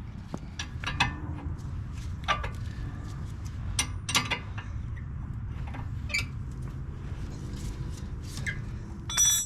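Scattered metallic clinks and knocks from hand tools working on a steel tie rod, with one louder ringing metal strike near the end.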